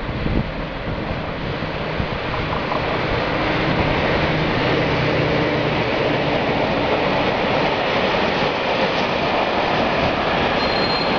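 Freight train passing close by: a green locomotive followed by covered hopper wagons rolling along the track. The steady rolling noise grows louder over the first few seconds, then holds.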